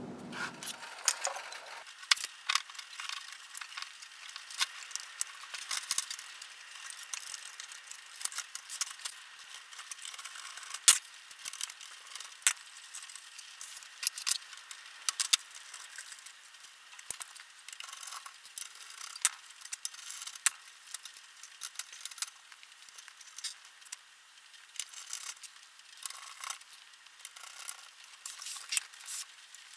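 Irregular metallic clicks, ticks and rattles from small screws and tools being handled on the open sheet-metal chassis of a Denon AVR-2802 receiver during reassembly.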